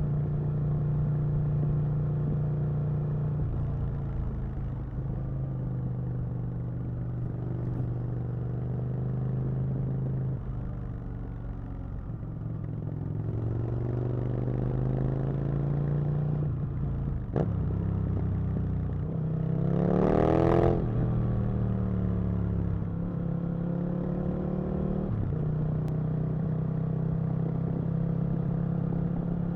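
Aprilia RSV Mille's 998 cc V-twin engine running under way, its pitch stepping up and down with throttle and gear changes. It revs up hard about twenty seconds in, then drops back.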